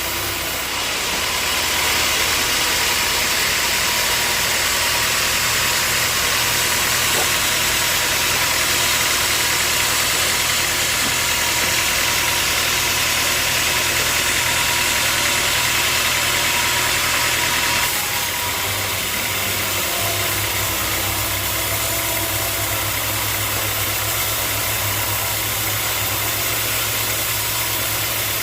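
Sawmill machinery running: a steady motor hum under a loud high hiss, which eases slightly about eighteen seconds in.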